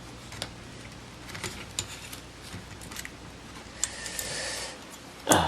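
Small metal parts, a nut, spacers and screw hardware, clicking and clinking lightly as they are handled and fitted into a camera mount, with a brief scraping sound about four seconds in and a short louder noise near the end.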